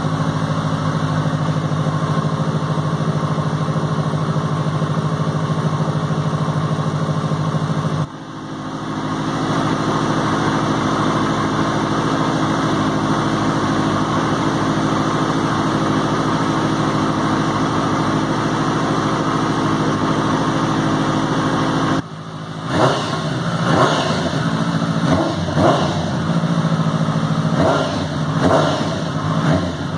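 Benelli TNT 600i's inline-four engine idling steadily. About two-thirds of the way through it is revved in a series of quick throttle blips.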